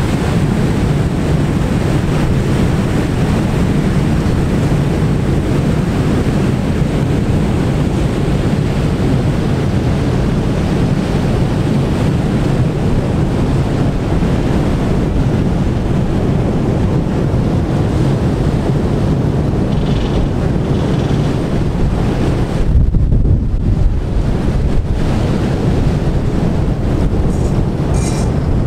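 Wind buffeting the microphone on a ferry's open deck over a steady low rumble of ship and sea, with one heavier gust about three quarters of the way through.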